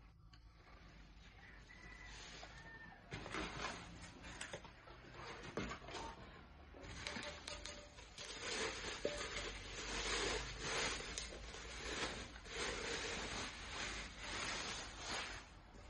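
Packaging rustling and crinkling in uneven surges as cookware is unwrapped, with a few light knocks.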